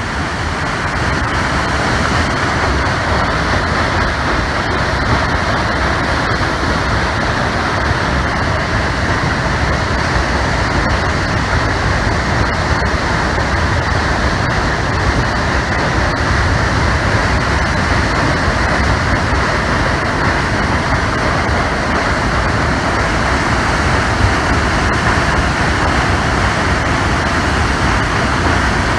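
Floodwater pouring through a dam's gate openings and over its spillway: a loud, steady rush of churning white water.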